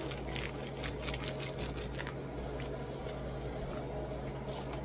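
Small plastic meal-kit packets crinkled and handled right at the microphone, a rapid run of small clicks and crackles that thins out midway and picks up again near the end, over a steady low hum.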